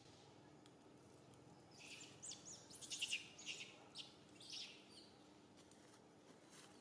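Faint birdsong: a quick run of short, high chirps, some sliding in pitch, about two to five seconds in.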